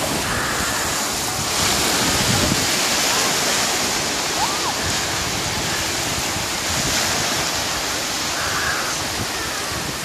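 Small waves breaking and washing up a sandy beach: a steady rush of surf that grows louder about a second and a half in.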